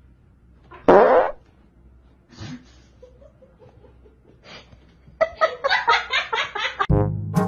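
A person breaks wind once, a short loud fart about a second in. Then from about five seconds in a person laughs in rapid bursts, and brass music starts just before the end.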